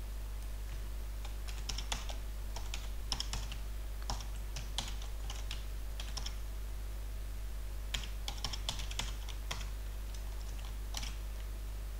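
Computer keyboard being typed on in several short bursts of keystrokes with pauses between, over a faint steady low hum.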